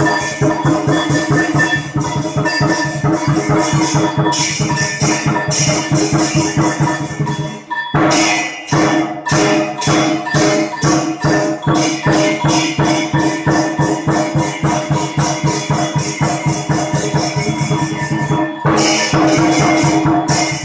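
Background music with a fast, even percussive beat over held tones, briefly dropping out about eight seconds in.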